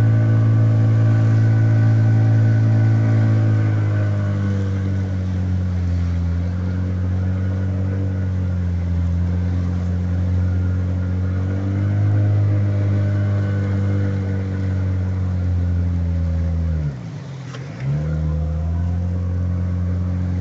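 Outboard motor driving an inflatable rescue boat upriver, running at a steady pitch. Its pitch eases down about four seconds in, and near the end the throttle is briefly cut almost to idle for about a second before it picks up again.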